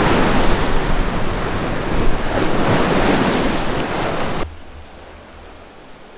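Ocean surf breaking and washing over a rocky shore, with gusty wind buffeting the microphone. About four and a half seconds in it cuts off suddenly to a much quieter background hiss.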